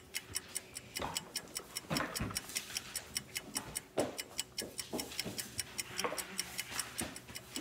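Clock ticking fast and evenly, about five ticks a second, marking the wait on a timer. A few short, falling excited cries from children come over it.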